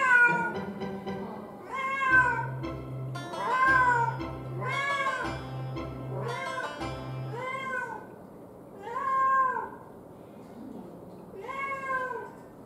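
A domestic cat meowing over and over, about eight calls that each rise and fall in pitch, coming every one to two seconds with a longer pause before the last. Background music plays underneath.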